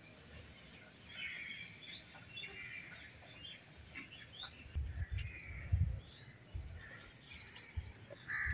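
Birds chirping, with short rising calls repeating every couple of seconds and other twittering calls between them. A few low rumbles come about halfway through.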